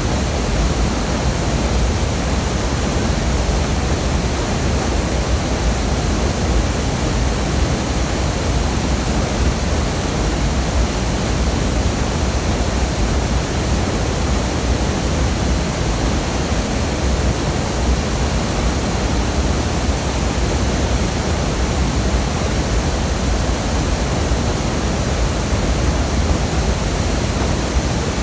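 Waterfall pouring: a steady, loud rush of falling water with a deep rumble underneath and no change throughout.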